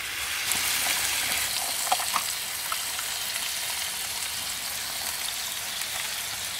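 Meat frying in a pan on a gas hob: a steady sizzling hiss, with a few faint clicks about two seconds in.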